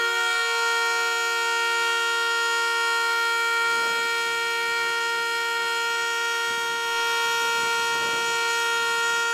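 A vehicle horn sounding continuously on one steady two-tone note, held without a break or change in pitch.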